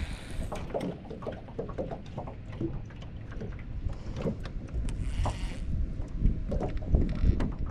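Water lapping against an aluminum jon boat's hull, with wind rumbling on the microphone and scattered small knocks and clicks from handling the rod and reel. About five seconds in there is a brief hiss.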